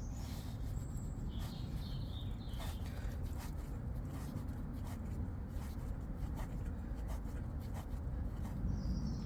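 Faint scrapes and clicks of a water stopcock being turned off by hand, over a steady low rumble.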